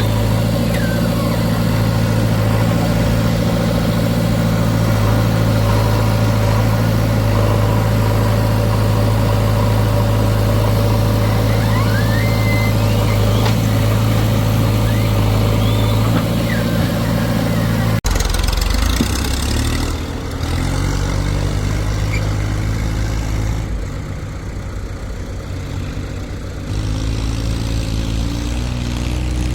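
Heavy diesel machinery engine running at a steady speed. About two-thirds of the way through it cuts abruptly to a different engine sound that steps up and down in speed.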